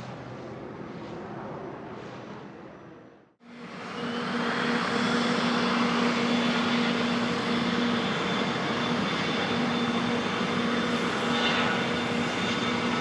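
A fading engine sound, then after a cut about three and a half seconds in, the loud, steady sound of a Bombardier Challenger 300's twin turbofan jet engines, with a low hum and a high whine.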